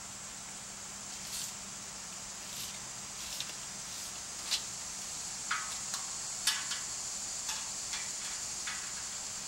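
Steady high insect drone, with about a dozen light, irregular clicks and taps scattered through it.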